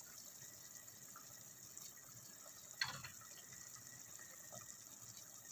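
Pot of lamb goto (rice porridge) at the boil: faint, steady bubbling, with one sharp click about three seconds in.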